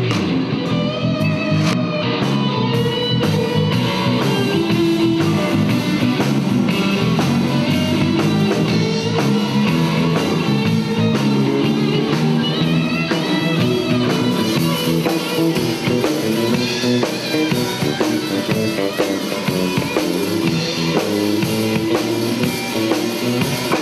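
Rock music with guitars and a drum kit playing a steady beat.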